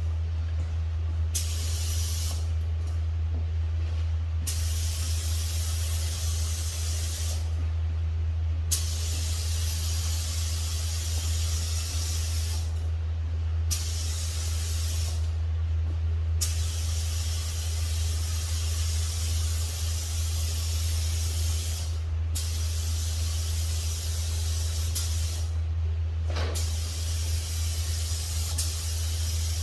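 Paint spray gun spraying primer in repeated passes: a hiss that starts and stops every few seconds as the trigger is pulled and released, over a steady low hum.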